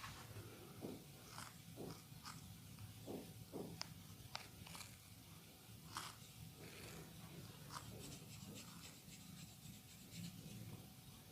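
Faint close-up massage sounds: hands rubbing and pressing on the body, with scattered soft clicks and short rustles over a low room hum.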